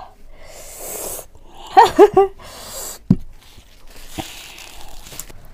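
A woman breathing out hard and hissing through her mouth after eating extremely spicy noodles, with three short, loud voiced sounds about two seconds in. A soft thump comes near the middle, and a small click follows a second later.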